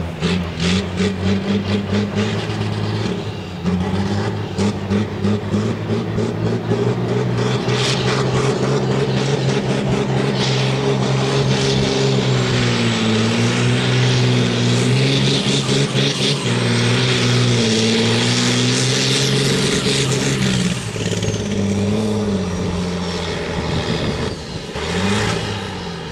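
John Deere 4050's six-cylinder turbodiesel running flat out under heavy load, pulling a weight-transfer sled. Engine pitch sags and recovers through the middle of the run while a thin high whine rises and then falls away, and the engine backs off near the end.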